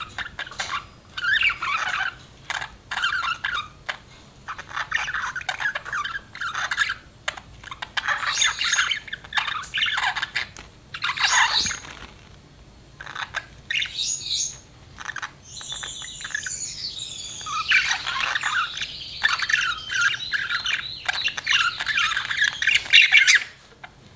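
Budgerigar chirping and chattering in short bursts, then breaking into a longer warble of rising and falling whistles in the second half, which stops suddenly near the end.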